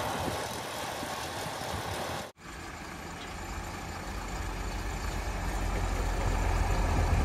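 Diesel engine of a rail-mounted Ashok Leyland ballast truck running, a broad rumble that breaks off about two seconds in, then a deep engine rumble that grows steadily louder.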